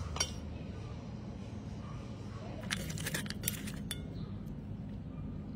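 Stainless steel bowl clinking as a hand mixes flaked tuna cat food in it: one clink near the start, then a quick run of clinks about three seconds in.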